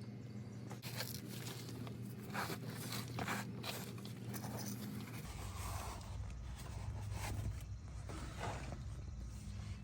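Scattered rustles and scrapes of hands handling a new oil filter while oiling its gasket ring, over a low steady hum that grows louder about five seconds in.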